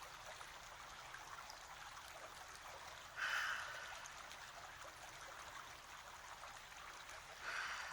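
A person breathing deeply during guided meditation: two audible breaths about four seconds apart, each swelling quickly and fading over about a second, over a steady background hiss.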